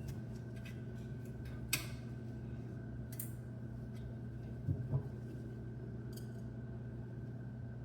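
Clicks and light knocks of small CPU-cooler mounting parts being handled and fitted, over a steady low hum: a sharp click about two seconds in and a double knock near the middle.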